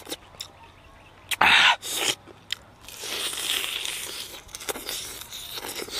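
Close-up crunching of a person biting into and chewing a crispy chicken thigh: two sharp, loud crunches about a second and a half and two seconds in, then a longer run of crackly chewing.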